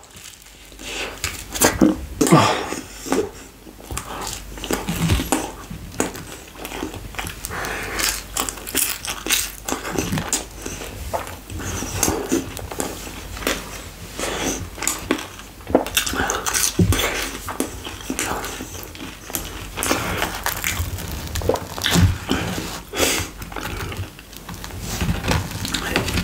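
Close-miked chewing and mouth sounds of someone eating chicken pizza topped with French fries: irregular wet smacks and crisp little clicks, several to a second.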